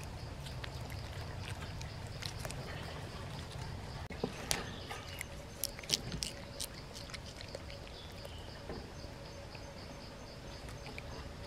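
Gibbons pulling at and eating leafy stems close to the microphone: a run of sharp clicks and crackles through the middle, over a steady low rumble and a pulsing insect drone.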